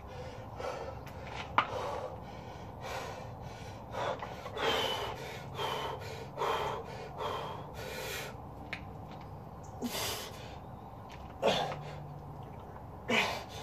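A man breathing hard through barbell curls: quick forceful exhalations about once a second, then louder gasps and a short voiced grunt near the end as the reps get hard. A single sharp click about a second and a half in.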